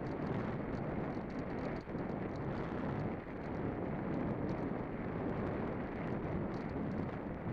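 Wind rushing over the microphone: a steady, even roar with no engine or motor tone.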